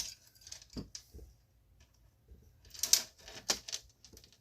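Metal clicks and clinks from pliers being adjusted and handled among a steel trap chain, a few single clicks early and a quick cluster of several about three seconds in.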